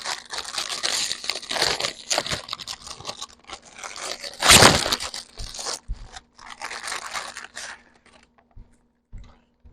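Food packaging being torn open, with a plastic wrapper crinkling and rustling and one loud rip about four and a half seconds in; the handling dies down near the end.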